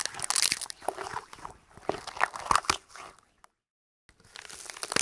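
Irregular crunching and crackling noises, with dense clicks and cracks. The sound cuts out completely for a moment a little past three seconds in, then starts again.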